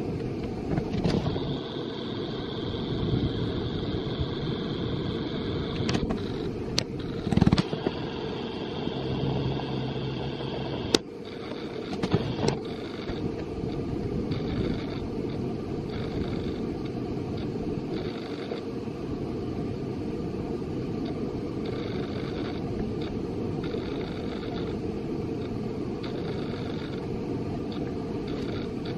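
Steady rushing of river water, with a high thin tone pulsing on and off over it and a few sharp clicks in the first half.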